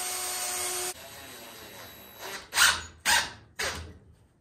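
Cordless drill driving a screw into a 2x4 wooden frame: the drill runs steadily with a whine for about a second and stops, then gives three short, loud bursts about half a second apart as the screw is driven home.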